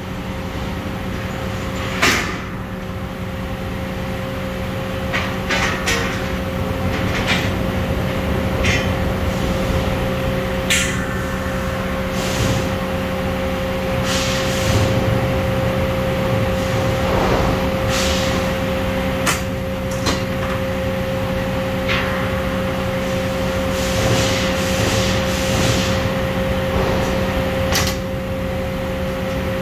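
Large steel circular saw blade being handled: a sharp metal strike about two seconds in, then scattered clanks and brief ringing of the steel plate as it is lifted and stood upright. A steady machine hum runs underneath.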